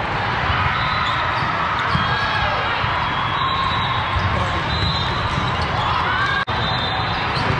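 Busy volleyball hall: balls being hit and bouncing on the courts over steady crowd chatter. The sound cuts out for an instant about six and a half seconds in.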